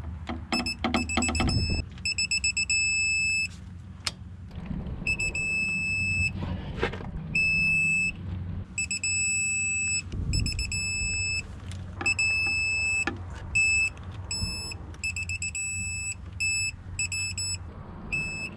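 Quinn digital torque wrench beeping as an M10 steering box bearing cap bolt is pulled up towards its 57 ft-lb setting: a high electronic tone coming again and again, some quick runs of short beeps and some held for a second or so, the wrench's signal that the set torque is near or reached. Now and then a click from the wrenches.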